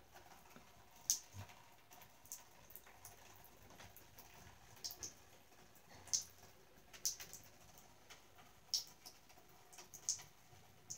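A cat lapping water at a bathtub tap: short, high, wet clicks at irregular intervals, about one a second, sometimes two close together.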